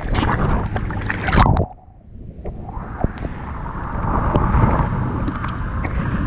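Sea water splashing and sloshing around a GoPro at the water's surface, with wind on the microphone. The sound cuts out sharply about a second and a half in, then a steady rush of surf builds back up.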